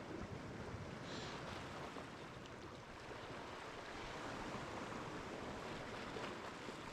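Calm ocean water washing gently against shoreline rocks, a steady low wash of surf.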